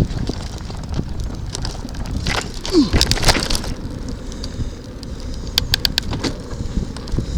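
Bicycle riding along a towpath: a low rumble of tyre and wind noise on the microphone, with scattered clicks and rattles from the bike, and a short falling tone about three seconds in.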